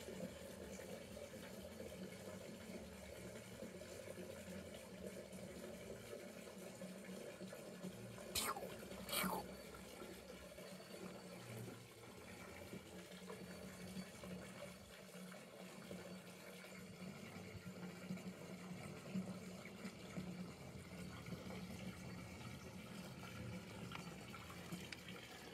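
Faint steady rushing noise with a low hum underneath, and two short sharp sounds about a third of the way in.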